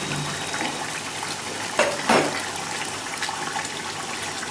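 A pot of water with rice in it boiling hard, a steady bubbling hiss. Two brief clatters sound about two seconds in.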